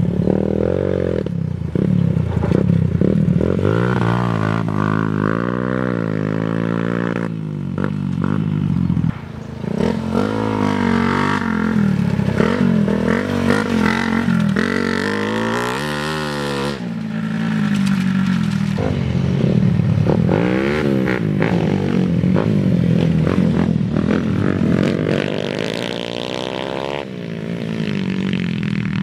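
Off-road motorcycle engines revving up and dropping back again and again as the bikes climb and ride over dirt trails, the sound changing abruptly a few times between passes.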